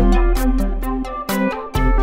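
Background electronic music with synth notes, deep bass and a steady beat.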